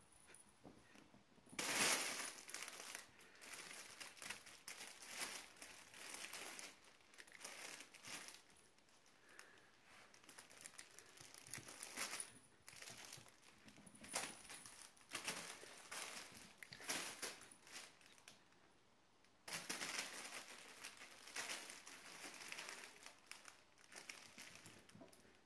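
Crinkly fabric cat tunnel rustling and crackling in irregular bursts as cats scramble in and on it, with a short pause about three quarters of the way through.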